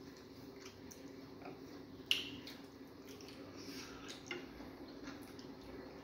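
Wet clicks and smacks of eating fufu and vegetable soup by hand, the sharpest about two seconds in, over a faint steady low hum.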